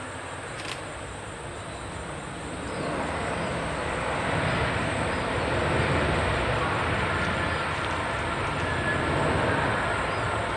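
Boeing 737-300 jet engines running, a steady rushing noise that swells about three seconds in and holds.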